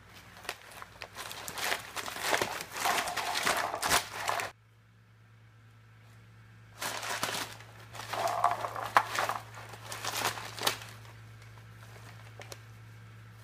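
Crumpled brown packing paper crinkling and rustling as a cat burrows and swats in it. It comes in two bouts: the first stops abruptly about four and a half seconds in, and the second starts about two seconds later and dies away about eleven seconds in.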